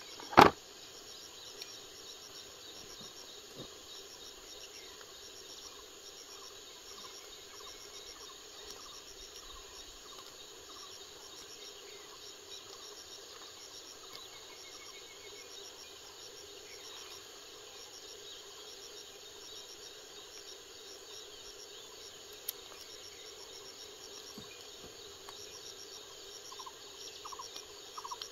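Steady insect chirring with a fast pulsing high trill, after a single sharp knock about half a second in.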